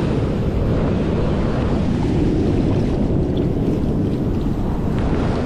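Ocean surf washing over rocks, a steady rushing wash, with wind buffeting the microphone.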